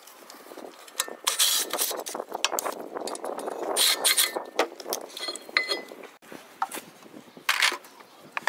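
Irregular metallic clinks and rattles of a cordless ratchet and socket being handled against a bolt under the car's front suspension, in short bursts.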